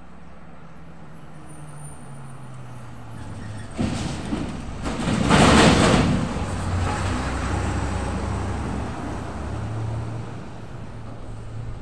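Heavy truck pulling a long, empty multi-axle flatbed trailer approaching and passing close by. Its engine and tyre noise swells to a loud peak about five and a half seconds in, then fades to a lower engine rumble as it pulls away.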